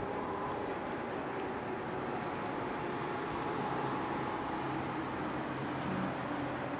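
Steady outdoor background noise, a dull rumble with a low hum that comes in about two-thirds of the way through, and a few faint high chirps just after that.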